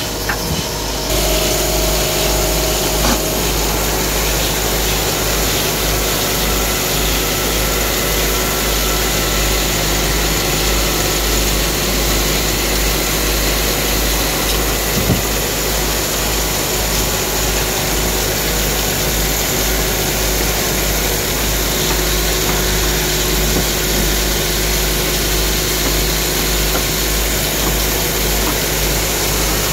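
Belt-driven wood lathe running steadily, its motor and drive belt giving a continuous low hum.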